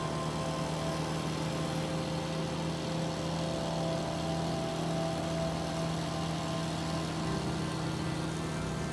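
Car driving at a steady speed: a constant engine hum with road noise, heard from inside the cabin.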